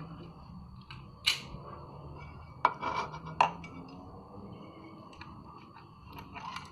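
A few sharp clicks and taps of small metal tools and parts being handled during wiring work on a speaker amplifier board, over a steady low hum.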